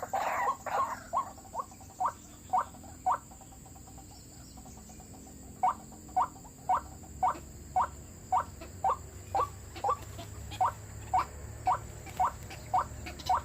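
White-breasted waterhen (ruak-ruak) calling: short, clipped notes repeated at about two a second. The notes stop about three seconds in, then start again some two and a half seconds later and carry on at the same steady pace.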